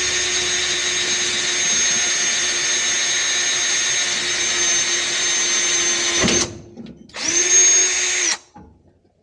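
Electric power drill running: one long steady whine of about six seconds, then a short second burst that spins up as it starts.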